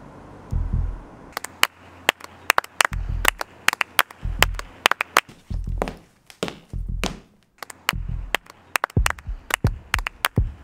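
A rhythm built from percussion: deep, heavy thuds repeat roughly once a second. From about a second and a half in, sharp clicks and claps join them, growing into a dense, quickening beat.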